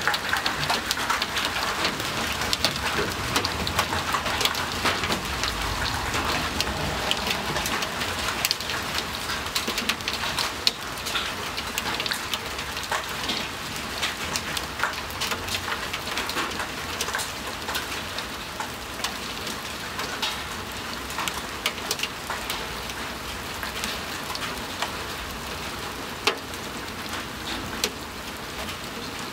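Hail and heavy rain coming down together: a steady hiss of rain with many sharp separate cracks of hailstones striking hard surfaces. The downpour slowly eases.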